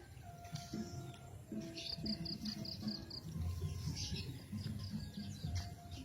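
Background music with held tones, and a quick run of about seven short high chirps about two seconds in.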